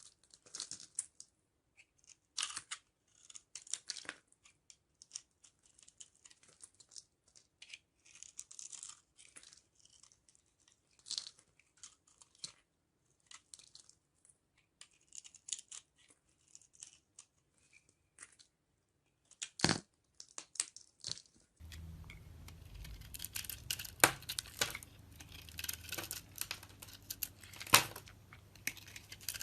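Knife chopping through dry bar soap: short, crisp crackling cuts in irregular bursts. About two thirds of the way in the recording changes, and the cuts come louder and denser over a steady low hum.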